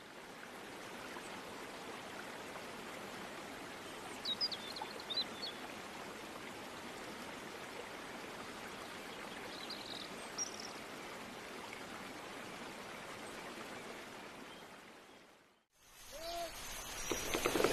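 Steady outdoor hiss of open countryside, with a few brief bird chirps about four to five seconds in and again about ten seconds in; it fades out near the end, and a different, louder hiss rises in just before the end.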